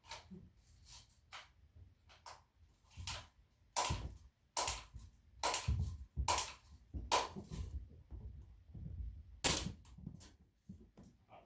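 A gun fired repeatedly at a plastic coffee maker, sharp cracks. There are a few fainter shots first, then a run of about five shots a little under a second apart starting about four seconds in, and a single loudest shot near the end.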